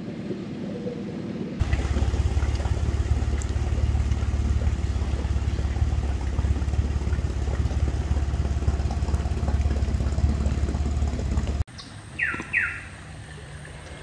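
Small boat outboard motor running steadily from about two seconds in, cutting off abruptly near the end. After that come two short, falling bird calls in quick succession.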